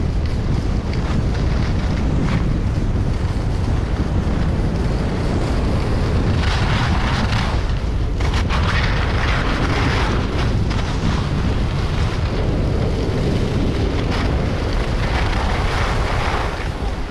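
Wind buffeting the microphone of a camera on a skier moving downhill, with the hiss of skis scraping over packed snow coming and going through the turns.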